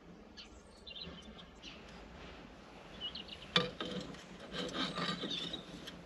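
Faint rubbing and scraping of electrical wires being handled into a small gel-filled push connector, with a sharp click a little past halfway and more rustling after it.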